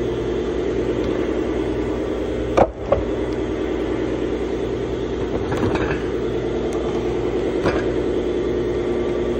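A steady machine hum runs throughout. Over it come two sharp knocks close together about two and a half seconds in and a few lighter clicks later, as heavy wooden blocks are handled.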